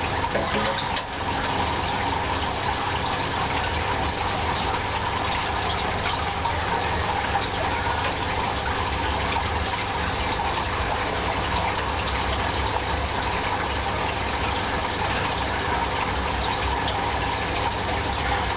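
Steady rush of running water with a low electric hum underneath, unbroken throughout.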